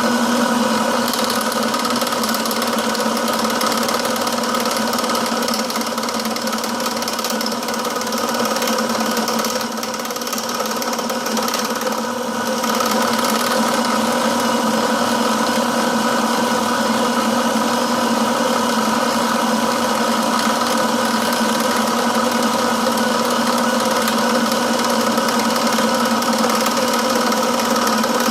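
Milling machine running steadily with a constant motor hum and whine. It dips slightly about ten seconds in, then comes back.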